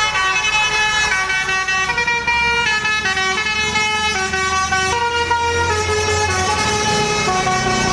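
Telolet bus horn, a set of musical air horns sounding several notes together and stepping through a tune, each chord held for about half a second to a second. A low rumble sits under it in the second half.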